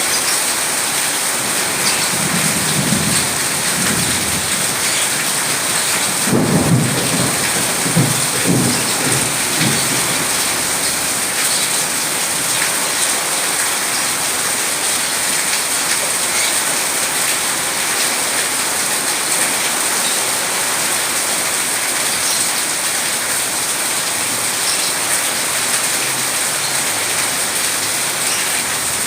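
Steady rain falling, with thunder rumbling low twice in the first ten seconds, the second roll louder.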